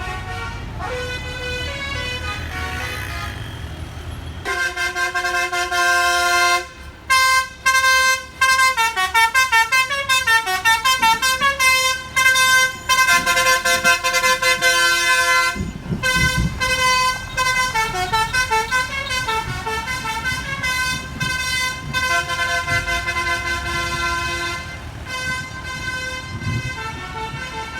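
Bus 'telolet' Basuri musical air horn playing a tune of quick stepping notes, loud from about four seconds in and fading near the end, over the low rumble of the bus engine, which swells about halfway through.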